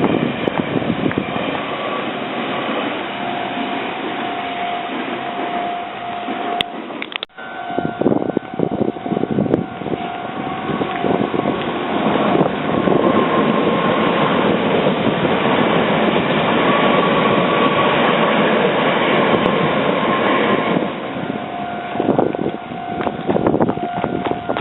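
Level-crossing warning bell ringing as a Meitetsu train passes over the crossing. The train's running noise is loudest from about halfway through until near the end, when the bell is heard again on its own. The sound drops out for a moment about seven seconds in.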